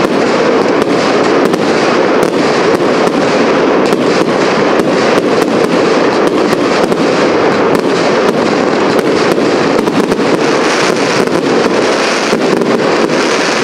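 Professional fireworks display: a dense, continuous barrage of sharp cracks and pops, several a second, over a steady din of bursting shells.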